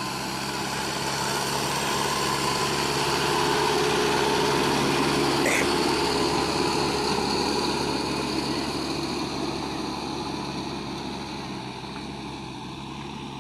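Mahindra EarthMaster SX90 backhoe loader's diesel engine running steadily, growing louder over the first few seconds and then easing off. A brief sharp sound about five and a half seconds in.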